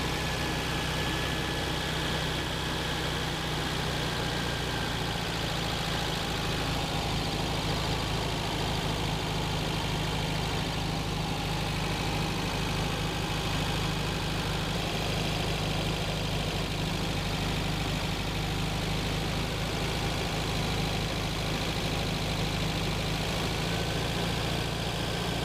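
Porsche 356's air-cooled flat-four engine running steadily at a fast idle of about 2,500 rpm, throttle held open. It is held at that speed to synchronize its twin Solex 40P11 carburetors with an airflow meter.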